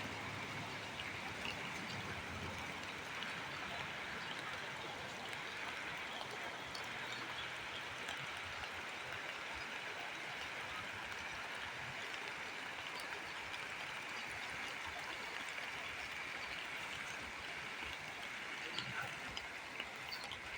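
Steady rain with water running off, an even continuous hiss.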